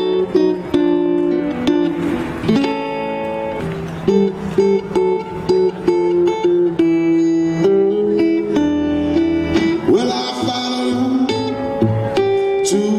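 Blues played on a resonator guitar and a harmonica: plucked guitar notes under long held harmonica notes, the instrumental opening before the vocal comes in.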